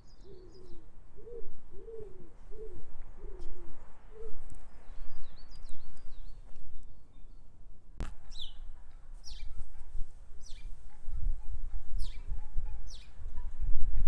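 Garden birdsong: a pigeon cooing in a run of low notes for the first four seconds or so, with small birds giving faint high chirps. A sharp click comes about eight seconds in, followed by a series of sharp, falling high chirps about once a second, with some low rumbling near the end.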